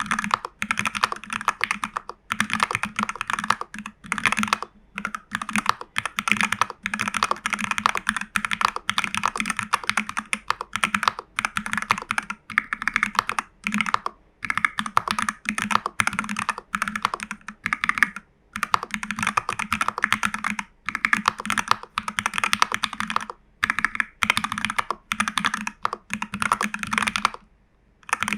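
Continuous fast typing on a custom mechanical keyboard: a TU40 plastic-case kit with case and PCB foam and a tape mod, fitted with Jelly Strawberry v3 switches, lubed Owlab stabilizers and CRP Cyrillic R keycaps. The keystrokes run in a dense stream, with a handful of brief pauses.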